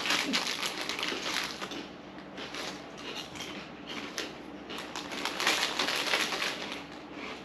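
A crinkly snack bag being handled, its plastic crackling in bursts as a hand rummages inside it for food.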